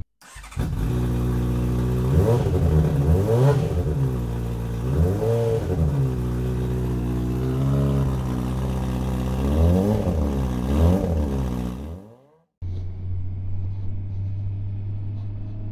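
A motorcycle engine idling and revved up and down about six times. It cuts off suddenly about twelve seconds in, and after a short silence a steady low engine drone follows.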